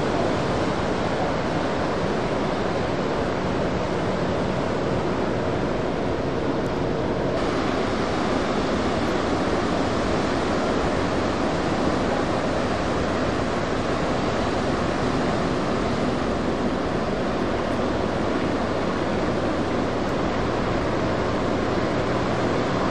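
Steady wash of breaking ocean surf, a continuous rushing noise that brightens about seven seconds in.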